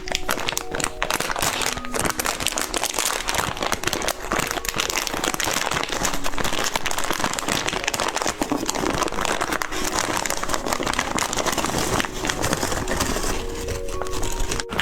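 Plastic candy wrapper being crinkled and crumpled by hand, a dense, continuous crackling.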